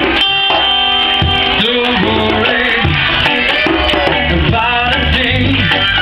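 Live reggae band playing, with guitars and a hand drum under a lead melody line.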